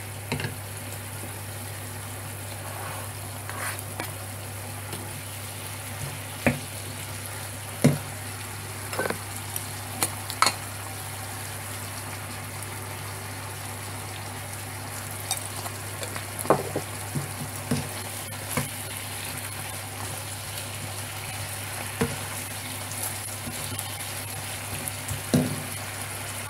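Chicken pieces sizzling in a frying pan over a steady low hum, while a wooden spatula stirs them, knocking and scraping against the pan in short irregular clacks.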